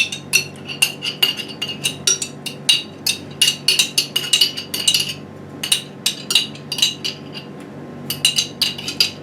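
A spoon clinking and scraping against a container as sauce is scooped out and spread, several quick ringing clinks a second with a couple of short pauses.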